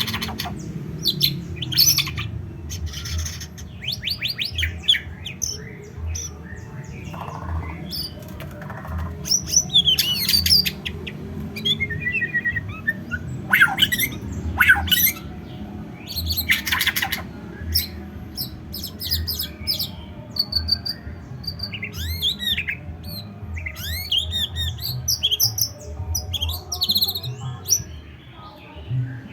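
White-rumped shama (murai batu) singing: a long run of varied loud phrases of clear whistles, rapid up-and-down sweeps, trills and harsher notes, with short breaks between phrases.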